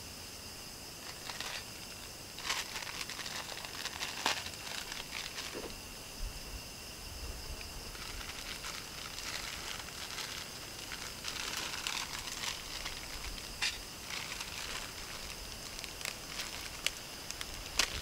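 Crinkling and rustling of a plastic packet handled in short spells, with a small wood cooking fire crackling under a pan. Steady high-pitched shrilling in the background.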